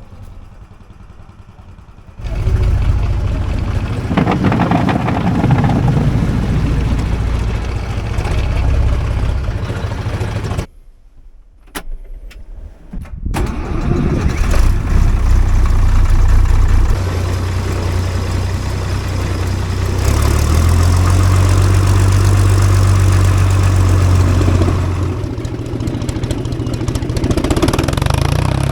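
Tractor engine running loudly, setting in about two seconds in. It drops out briefly around the middle, then comes back and changes its note a few times as its speed changes.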